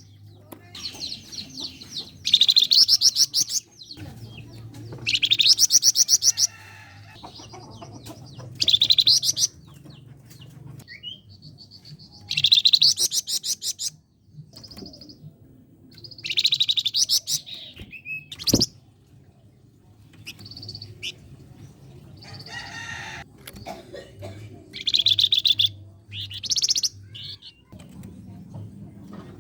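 A flamboyan songbird singing in bursts of rapid, shrill repeated notes, each about a second long, every few seconds. These are the fast 'tembakan' and tight 'besetan' phrases valued as tutoring song for contest birds. There is a single sharp click about two-thirds of the way through.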